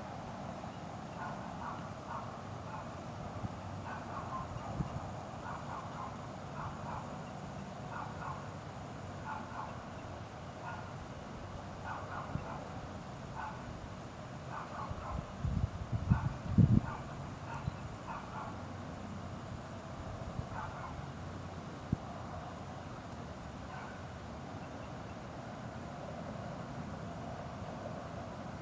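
Short animal calls repeating irregularly over a steady background hiss, with a cluster of louder low thumps about halfway through.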